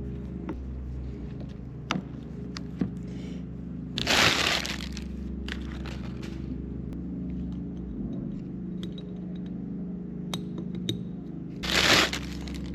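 Metal engine parts being handled during piston assembly: scattered sharp clicks and two short, louder scraping bursts over a steady low hum.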